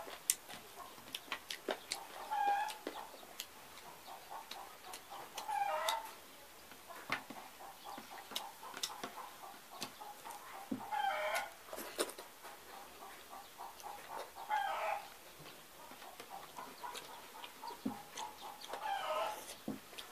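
Chicken clucking, short wavering calls every three or four seconds, over many small clicks of chewing and lip-smacking.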